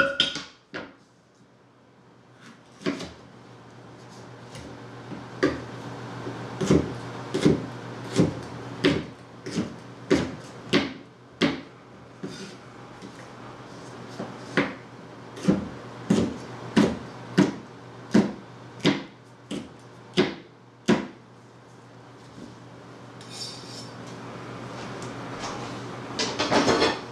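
Chef's knife chopping a jalapeño pepper on a plastic cutting board: a quick, even run of sharp chops, about two a second, that stops a little past two-thirds of the way through. A few louder knocks come at the start and near the end.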